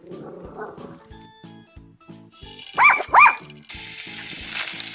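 A toy poodle barks twice in quick succession about three seconds in. Shortly after, cut vegetables tipped into hot olive oil in a camping pot start sizzling with a sudden, steady hiss. Background music with a steady beat plays underneath.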